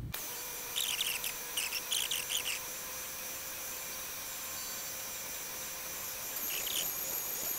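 DeWalt router spindle on a Shapeoko 3 CNC running with a steady high whine while its 1/4-inch bit mills a pocket in wood, with a few short scratchy cutting noises about a second in and again near the end.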